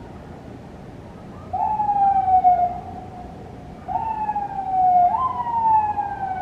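A siren sounding three times. Each time it jumps up in pitch, then glides down in a falling wail.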